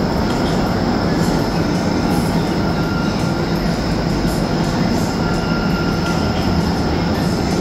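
Indoor skydiving vertical wind tunnel running at flying speed: a loud, steady rush of air and fan noise, with a faint steady high whine on top.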